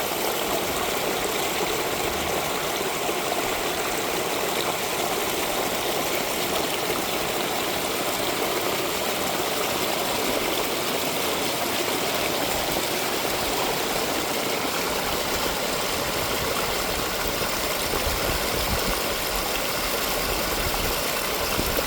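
Mountain stream of rainwater flowing steadily, a constant rushing, splashing wash of water. A faint low rumble rises under it near the end.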